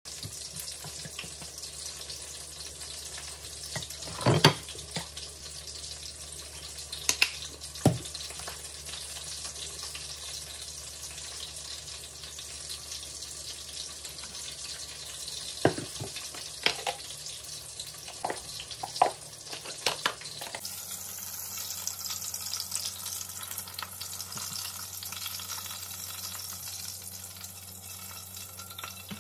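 Kababs frying in oil in a wok: a steady sizzle, brighter in the last third. Several sharp clicks and knocks of sauce bottles and plates sound over it in the first two-thirds.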